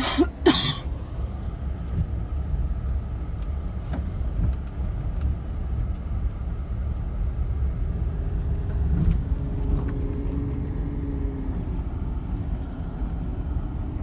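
Car driving, a steady low rumble of road and engine noise. Two short sharp sounds come right at the start, and a faint humming tone joins in about two-thirds of the way through.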